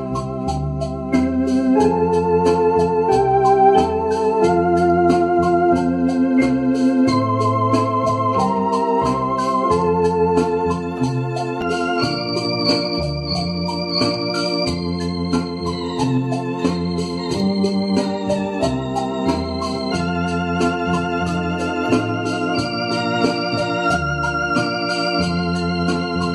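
Two-manual electronic home organ playing a hymn: held chords with wavering melody notes on top and a bass line that moves under them, note by note.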